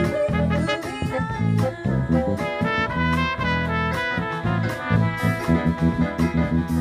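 A jazz ensemble playing a chacarera: horns carrying the melody over piano, electric bass and drums, with a steady driving beat.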